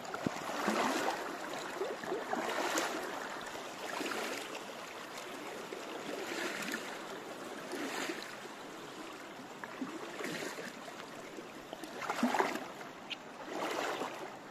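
Someone wading through a shallow, stony creek: the water sloshes and splashes with each stride, in swells every second or two, over the steady rush of the stream. The loudest splash comes about twelve seconds in.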